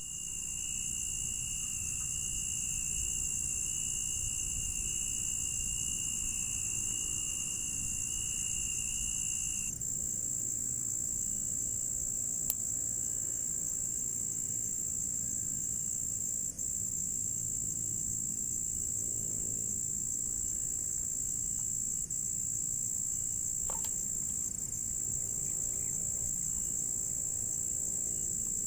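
A steady, high-pitched chorus of insects calling without pause. A second, lower insect trill joins it and stops about a third of the way in.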